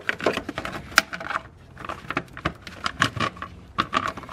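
Battery tray being fitted back into place in a car's engine bay: an irregular run of light knocks, clicks and clatters.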